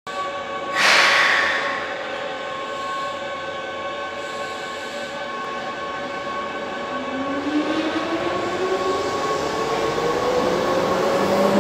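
Keihan 5000 series electric commuter train pulling out of a station. A loud burst of air hiss comes about a second in, steady humming tones follow, and from about seven seconds a whine rises steadily in pitch as the traction motors accelerate the train.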